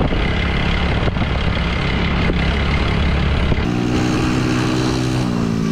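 A vehicle engine running while riding, a steady low rumble with road and wind noise. About two-thirds of the way through, a clearer, pitched engine note takes over and drops in pitch in steps.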